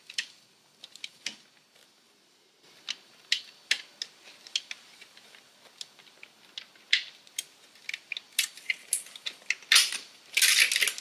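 Small clicks and taps of the plastic and metal parts of a Maschine Mk3 controller being handled and fitted during reassembly. They are scattered at first, grow busier after about six seconds, and end in a louder clatter near the end.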